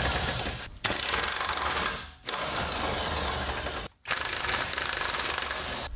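Corded electric impact driver with a 19mm socket hammering nuts off, in four long trigger pulls with short pauses about a second, two and four seconds in.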